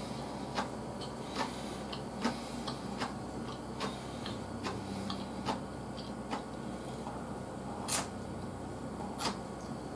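Chewing with soft wet mouth clicks, roughly one a second and a little uneven, as mapo glass noodles are eaten; a faint steady low hum lies underneath.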